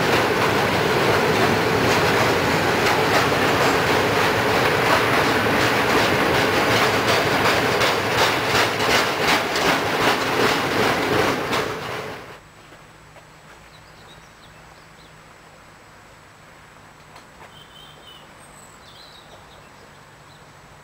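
Train passing close by, its wheels clattering rhythmically over the rail joints. The sound cuts off suddenly about twelve seconds in, leaving quiet outdoor background with a few faint chirps.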